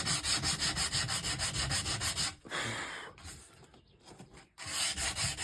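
Sandpaper rubbing on an old wooden table, stripping its varnish, in quick, even strokes. The sanding stops for about two seconds in the middle, then starts again.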